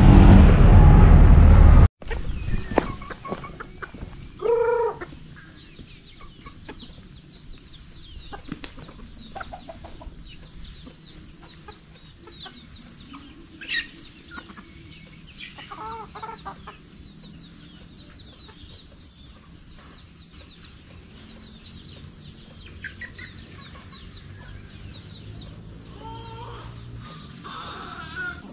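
Loud street traffic cuts off about two seconds in. Then backyard chickens call now and then, with louder calls of about half a second each around five seconds in, midway and near the end. Short bird chirps and a steady high-pitched hiss run underneath.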